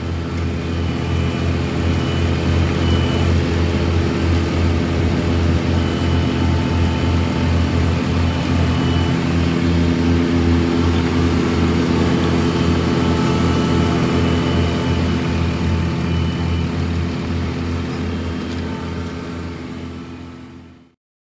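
Asphalt paver's diesel engine running steadily at close range, a continuous low drone. It fades out near the end.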